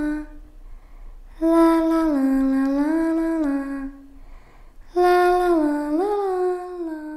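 A creepy little-girl voice humming a slow, wordless lullaby-like tune in two long phrases, the first starting about a second and a half in and the second about five seconds in, each note held and stepping down and back up.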